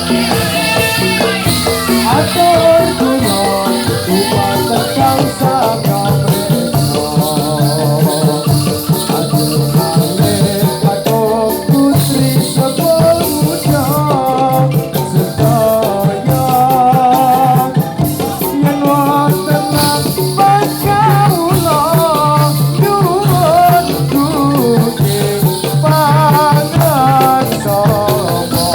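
Javanese Topeng Ireng dance music: a wavering sung melody over a steady drum beat, with a constant jingling rattle of many small ankle bells.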